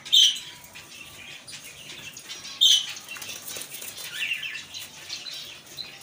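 Fancy pigeons flapping their wings in a wire cage: two short, loud flurries, one right at the start and one a little before halfway, with softer rustling between.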